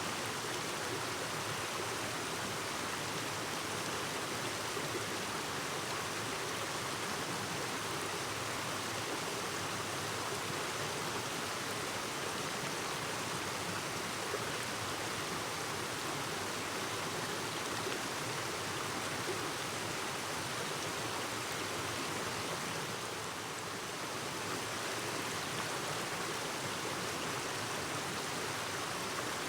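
A clear mountain stream babbling over rocks, a steady rush of flowing water.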